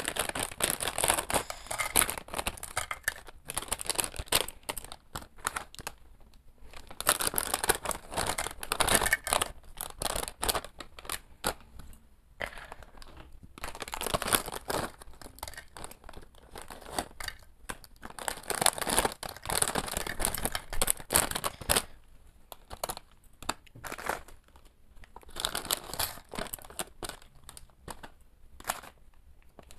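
Foil potato-chip packets crinkling as they are handled and shaken out, with chips pouring onto a plate. It comes in several bouts of a few seconds each, with short pauses between.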